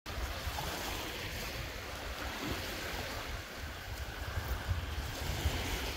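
Small sea waves washing gently onto a sandy shore in a steady surf hiss, with wind rumbling on the microphone.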